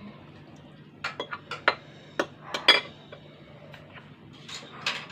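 Metal spoon clinking and scraping against a ceramic bowl, a quick run of sharp clinks about a second in, then a few more near the end.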